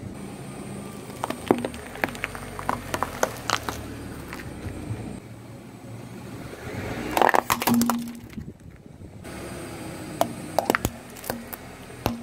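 Car tyre rolling slowly over crunchy and soft objects on asphalt, crushing them: scattered sharp cracks and crunches, with the loudest burst of crackling and squishing about seven to eight seconds in.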